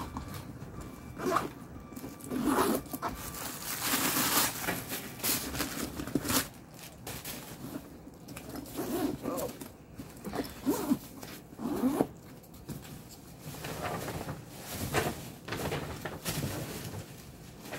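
Zippers of a Michael Kors backpack being worked, with scraping and rustling as the bag is handled, in a string of short irregular bursts.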